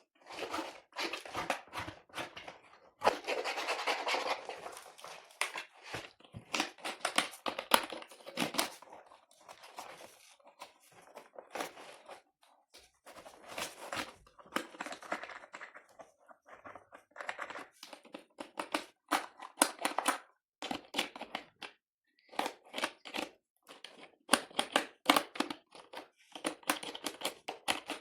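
Irregular scratching, scraping and rustling on a dirty computer keyboard being cleaned by hand, with scattered short clicks.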